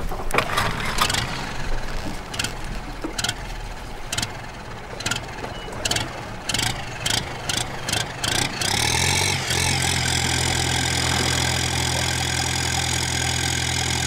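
A fishing boat's inboard diesel engine being started. Sharp clicks and knocks come faster and faster as it is readied and cranked. About nine seconds in it catches, rises briefly and settles into a steady idle.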